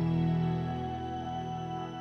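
Background music: sustained instrumental chords, slowly fading out.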